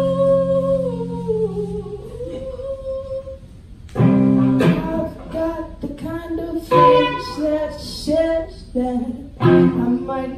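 Singing to an electric guitar: a held chord under one long sung note that wavers and dips, then, about four seconds in, strummed chords with shorter sung phrases.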